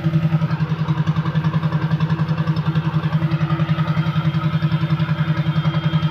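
A small machine running steadily at idle, with a rapid, even pulsing beat.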